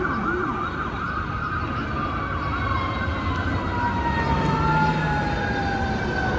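Ambulance siren going by: a fast warbling yelp near the start, then a long wail that slowly falls in pitch, over steady traffic noise.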